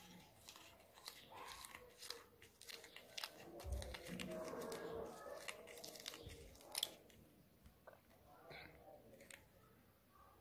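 Faint irregular clicks and crackles of fingers twisting thin wire around a small plastic-covered part.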